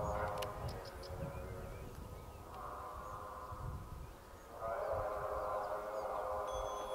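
Deep droning tones that swell and fade in three waves, over a low, uneven rumble of wind on the microphone.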